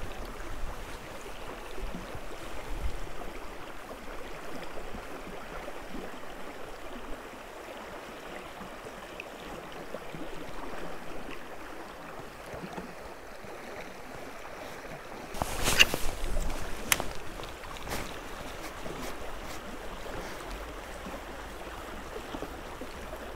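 Steady rush of flowing river water, with wind on the microphone. About two-thirds of the way through there is a brief loud thump, followed by a couple of clicks.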